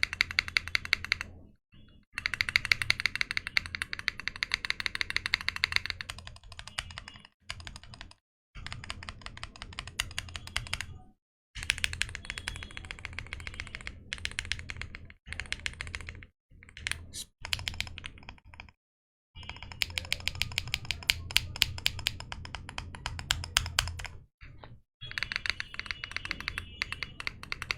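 Sugar65 gasket-mounted aluminium 65% keyboard with an FR4 plate, Leobog Greywood V4 switches, being typed on in fast runs of keystrokes with short pauses between. The builder notes a slight ticking on the left side.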